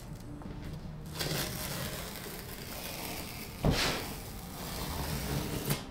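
Large cardboard box being handled and turned on a table: rough scraping and rustling of cardboard, with a sharp knock about three and a half seconds in and a lighter one near the end.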